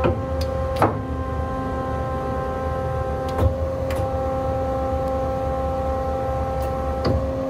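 Hyd-Mech S-20A bandsaw's hydraulic unit running with a steady whine over a low hum, with a few sharp clunks as the hydraulic shuttle vise is worked.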